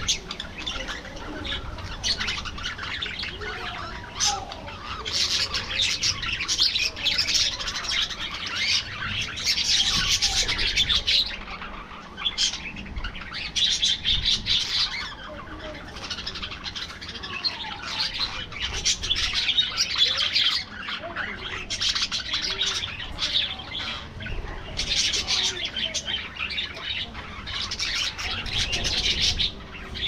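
A flock of budgerigars chattering and warbling together, dense fast chirps that swell in bouts every few seconds and ease off briefly in between.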